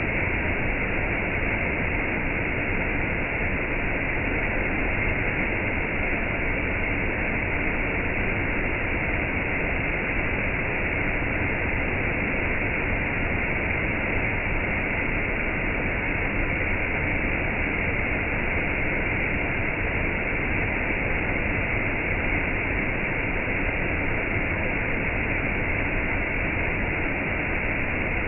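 Steady, unbroken rush of falling water from gentle rain and a waterfall, even throughout with no single drops or splashes standing out.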